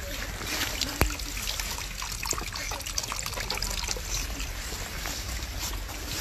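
Meltwater trickling and splashing from a drainpipe onto wet pavement, with small scattered splashes throughout and a sharp click about a second in.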